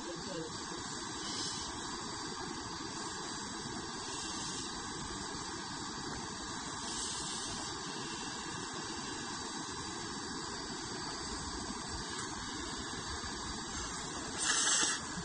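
Portable camping gas stove burner hissing steadily under a metal pot of noodles. A short, louder slurp of noodles comes near the end.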